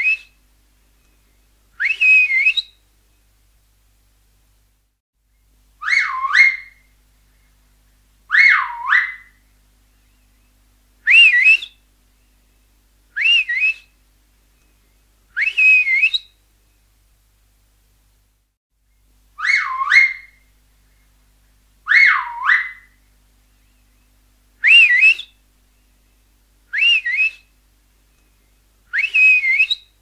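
Finger whistle, blown a dozen times, short whistles about two seconds apart. Some rise quickly to a high pitch; others dip down and swoop back up.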